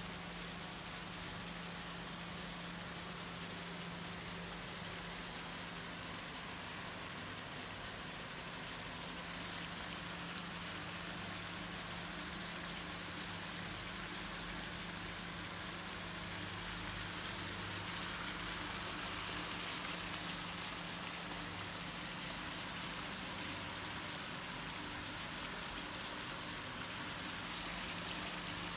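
Small anchovies (netholi) shallow-frying in hot oil in a pan: a steady sizzle that grows a little louder a little past the middle, over a low steady hum.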